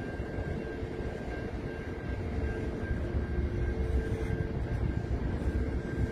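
Freight train wagons rolling past: a continuous low rumble of wheels on rail, with a few faint steady whining tones above it.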